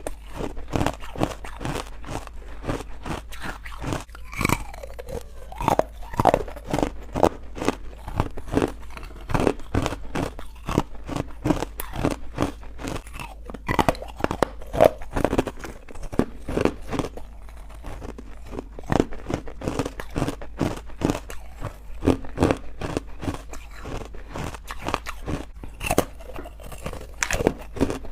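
Close-up crunching and chewing of chalky, powdery carbonated white ice bites: rapid, irregular crunches that go on without a break.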